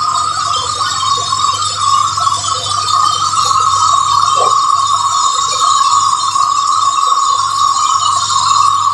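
Sawmill band saw cutting through a large teak log: a steady, loud high whine with a hiss of cutting above it and a low machine hum underneath.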